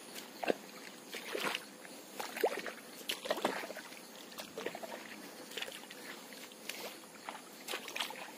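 Footsteps and rustling as someone walks through wet grass and leafy plants: irregular swishes and soft crackles, with a few sharper clicks.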